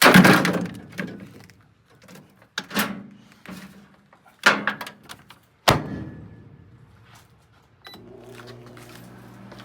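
Objects knocking and clattering into a microwave oven, ending in a sharp thunk like the door being shut. About eight seconds in, a steady low hum starts, typical of the microwave switching on and running.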